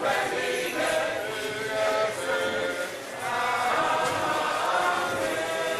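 Many voices singing together in a chant, with held notes.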